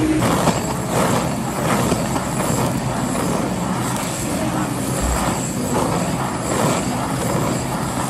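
Handheld butane blowtorch running with a steady rushing flame noise, searing gochujang-marinated pork belly in a pan to give it a charred fire flavour.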